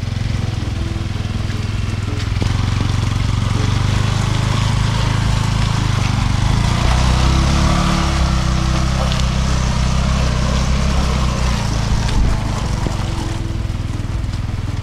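Honda CT125 motorcycle's single-cylinder engine running as the bike is worked up a slippery mud track, its pitch rising and falling in the middle. A steady hiss runs along with it.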